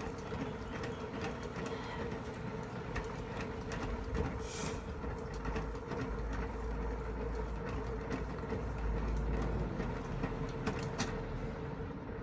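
Hand-cranked mini washing machine being turned to agitate a load of washing: a steady mechanical rattle with many small clicks and a low hum.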